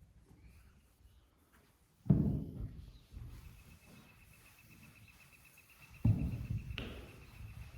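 Background music: deep drum hits about two seconds in and again about six seconds in, each dying away slowly, under a thin, steady, wavering high tone.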